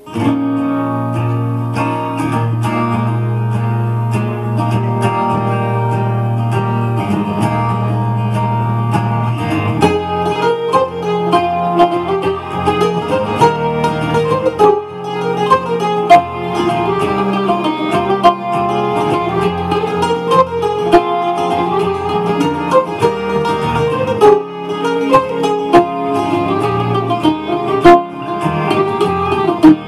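Gold Tone OM800+ octave mandolin playing an Asturian folk melody. For about the first ten seconds a low steady drone sounds under the picked melody. After that the melody turns quicker and busier.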